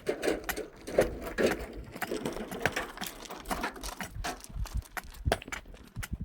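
A quick, irregular run of sharp clicks and knocks.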